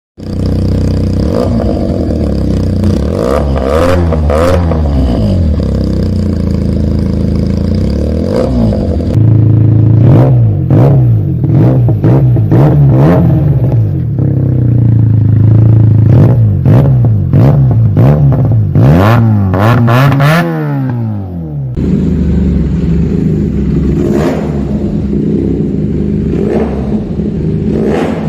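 Benelli 300 motorcycle with an aftermarket SC Project exhaust, idling and blipped repeatedly, its note rising and falling with each rev. The sound changes abruptly twice, about a third and three quarters of the way through, as different clips follow one another.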